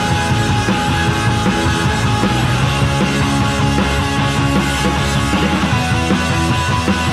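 Background music playing steadily and fairly loud, with sustained notes over a steady bass.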